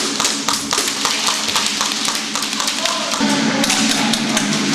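Rapid, irregular clicks and taps of airsoft gunfire, with BBs striking plywood walls, over a steady low hum that gets louder about three seconds in.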